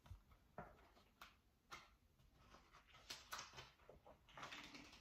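Near silence with faint handling noise from a picture book: a few scattered light taps and clicks, then a soft rustle near the end.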